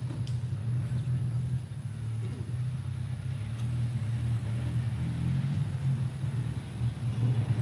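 A steady low rumble of outdoor background noise, with no speech over it.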